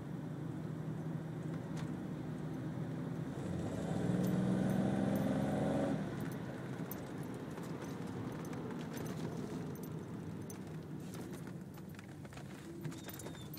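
BMW 750iL E32's 5.0-litre V12 heard from inside the cabin. It pulls hard for about two seconds with the pitch rising, then drops off abruptly about six seconds in and settles to a quieter steady cruise. A few light clicks come near the end.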